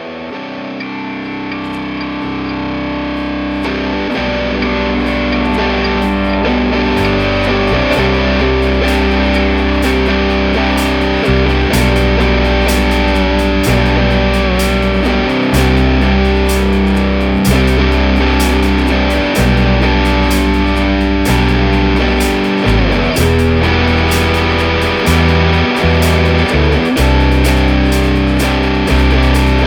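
Rock backing music led by distorted electric guitar over a bass line and a steady drum beat, fading in over the first few seconds.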